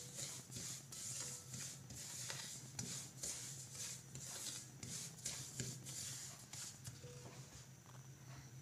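Spatula scraping and stirring semolina in oil around a non-stick kadhai: repeated short scratchy strokes, about two to three a second, as the sooji is roasted for halwa.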